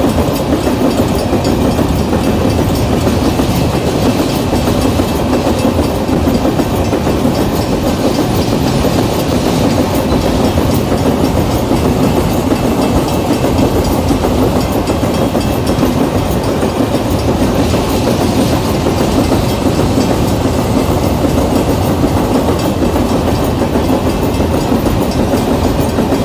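Empty iron-ore freight train rolling past steadily, its wagon wheels running over the rails.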